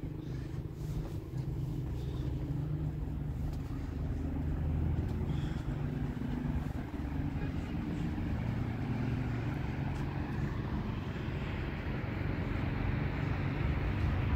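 Outdoor ambience: a steady low rumble, with a hiss that grows over the second half.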